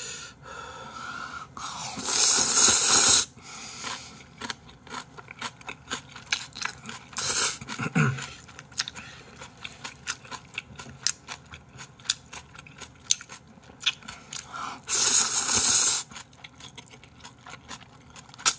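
Close-miked eating of Chapagetti noodles with thin-sliced pork belly. There are two loud slurps of noodles, about two seconds in and again near the end. Between them come wet chewing and small clicks of chopsticks against the plate.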